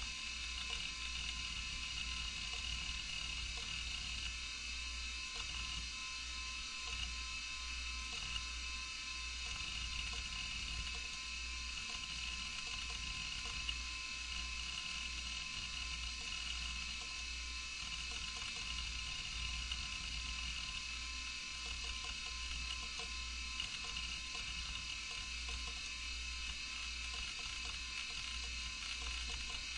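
Computer hard drive running: a steady electronic hum and high whine, with a few faint ticks.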